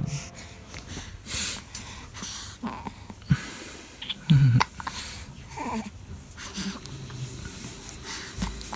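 Two-month-old baby hiccuping over and over: short, sharp catches of breath about a second apart, with small breathy noises between them.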